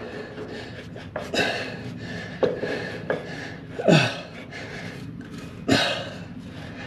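A man grunting and breathing hard with effort while forcing a brake band into place, about five short breathy bursts, two of them sliding down in pitch.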